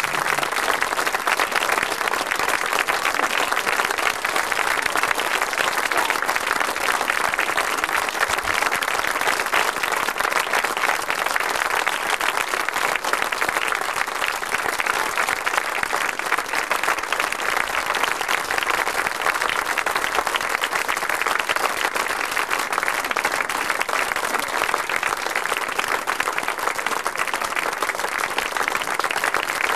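Audience applauding: dense, steady clapping that holds at an even level throughout.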